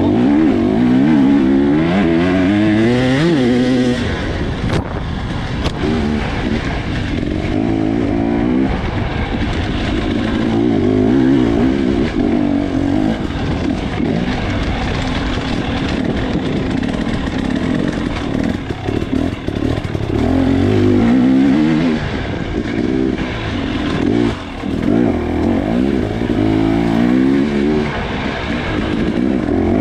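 Off-road dirt bike engine heard from the rider's helmet, revving up and down over and over as the throttle is opened and closed, with occasional knocks.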